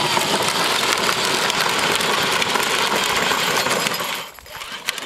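Kids' pink ride-on toy Jeep running over dry, gravelly dirt: its hard plastic wheels crunch and rattle steadily with many small clicks. The noise drops off sharply a little past four seconds in.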